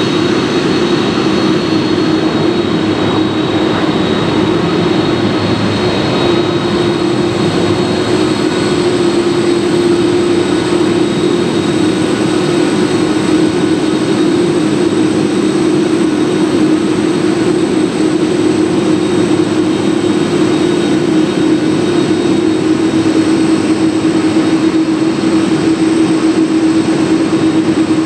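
Jet engines of a Boeing 747-400 running steadily: a loud, constant hum with a thin high whine above it.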